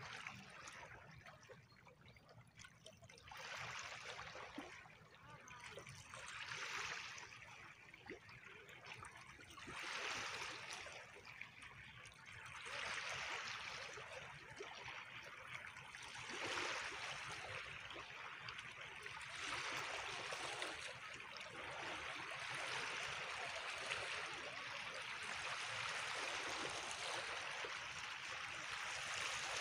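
Faint rushing of water washing over sand and pebbles, swelling and fading every few seconds, then running steadier and a little louder near the end.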